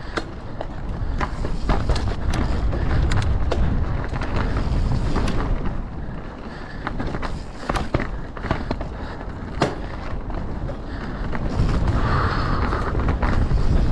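Mountain bike ridden fast down a rough trail: tyres rolling over dirt and rock under a steady low rumble, with frequent clatter and knocks from the bike.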